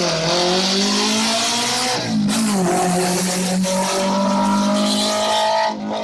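Historic racing car's engine under hard acceleration uphill: the engine note rises, breaks for a gear change about two seconds in, then climbs again and holds at high revs.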